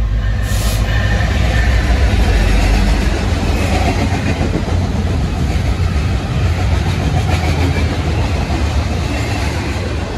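Union Pacific diesel freight locomotives passing close by with a loud, steady rumble, loudest about two to three seconds in, followed by double-stack container cars rolling past with continuous wheel noise on the rails.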